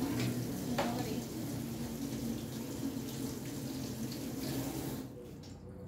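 Running water: a steady rushing hiss that stops about five seconds in, with a short knock about a second in.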